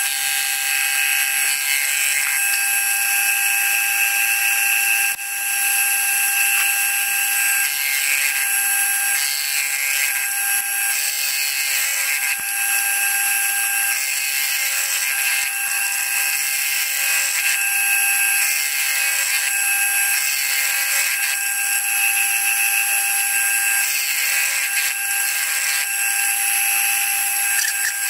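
Vertical milling machine running an end mill through a small metal motion-plate bracket. The footage is sped up eightfold, so the machine is heard as a high, steady whine with a cutting hiss over it.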